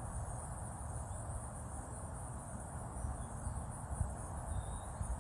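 Outdoor ambience: a steady high-pitched insect trill, with a low rumble underneath.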